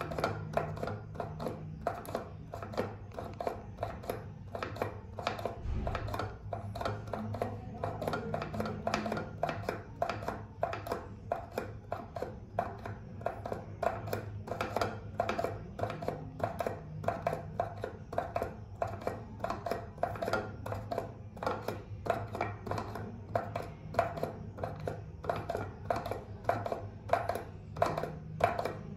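Pump of an empty liquid-soap dispenser pressed over and over, the plastic pump head clicking about twice a second with no soap coming out. A steady low hum runs underneath.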